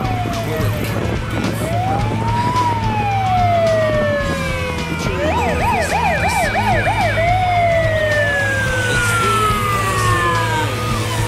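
Police siren on a vintage American police-style car: a slow rising and falling wail, a fast yelp for about two seconds midway, then a long falling wail. Under it, the steady low running of passing Harley-Davidson motorcycles and trikes.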